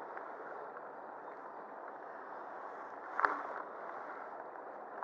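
Shallow river water running over riffles, a steady rushing, with one short sharp click about three seconds in.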